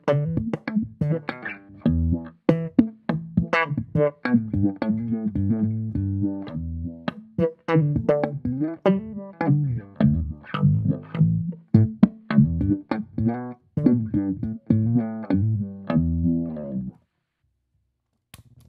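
Electric bass on its passive pickups played through a GigFx SubWah pedal in SubWah mode: a busy run of plucked notes with the filter sweeping over each one. The playing stops near the end, followed by a short click.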